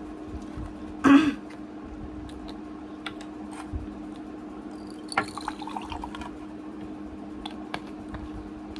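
A screw cap twisted off a plastic soft-drink bottle with one short, loud hiss about a second in, then the drink poured into a ceramic cup, splashing and crackling about five seconds in.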